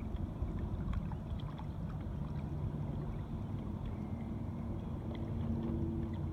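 Small electric thrusters of a 3D-printed ROV running under control, their faint hum shifting in pitch as the speed changes, over a steady low rumble with a few light ticks.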